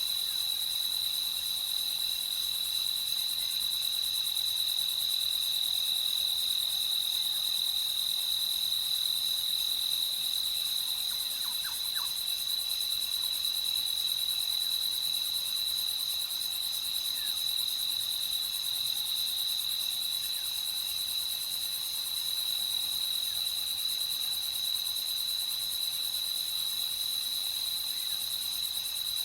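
Crickets chirping in a continuous night chorus, a steady high-pitched trill that never lets up. A faint, brief call sounds in the background about twelve seconds in.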